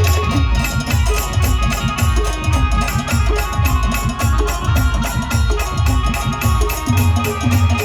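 A live Maharashtrian band playing a song loudly, with heavy drums beating under long held melody notes.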